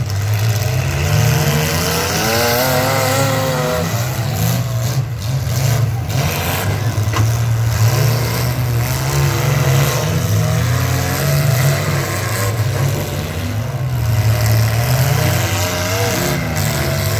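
Mid-size demolition derby car engines revving hard, their pitch rising and falling as the cars reverse and ram one another.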